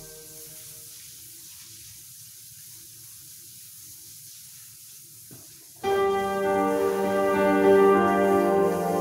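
Background music: after a few quiet seconds of faint noise, sustained keyboard chords come in suddenly about six seconds in and hold on.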